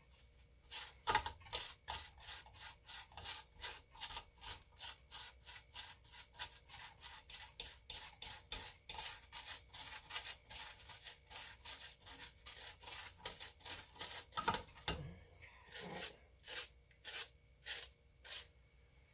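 A utensil rubbed back and forth against a strainer, pushing soap-making ingredients through it in quick, even strokes, about three a second.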